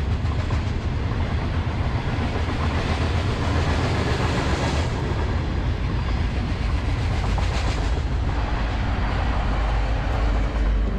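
Freight train of open-top hopper cars rolling past: a steady rumble and clatter of steel wheels on rail. Near the end, the BNSF diesel locomotives at the rear of the train pass.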